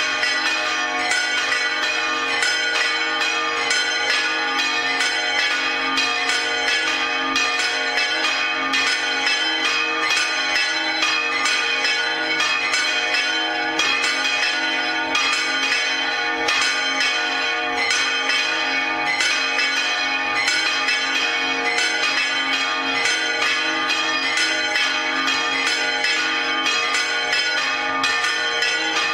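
Spanish church bells swinging full circle (volteo), several bells of different pitches striking in quick, overlapping strokes in a steady, unbroken peal. The general swing-peal rung as the call to Mass.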